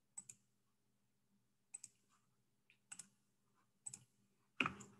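Faint computer mouse clicks, several in quick pairs, about once a second, with a slightly louder click near the end.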